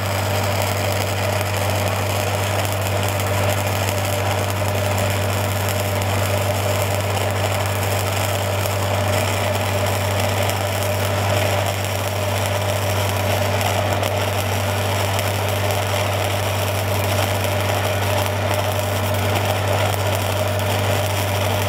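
Stick-welding arc crackling and hissing steadily as a 7010 rod burns in a downhill cap pass on steel pipe, with a steady low hum underneath.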